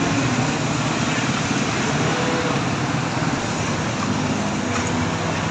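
Street traffic noise: motor vehicles running with a steady, even wash of road noise and a low engine hum underneath.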